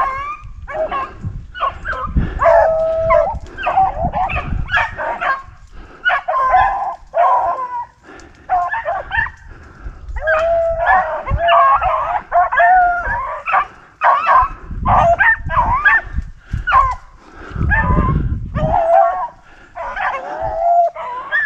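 A pack of beagles baying and yelping without a break, several dogs' voices overlapping: the hounds in full cry running a rabbit's track.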